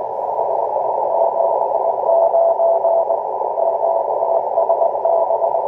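Morse code (CW) heard through a ham radio transceiver: a single mid-pitched tone keyed in dots and dashes over steady band hiss that is narrowed by the CW filter. It is the distant station's reply, sending a 579 signal report.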